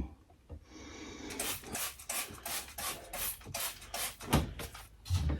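A rapid series of rubbing strokes, about three a second, lasting some three seconds and followed by a low thump.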